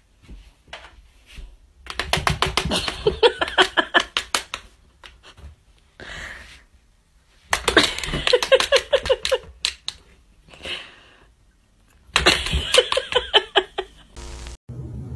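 A person laughing in three bouts of quick, pulsing laughs, with short quiet gaps between them.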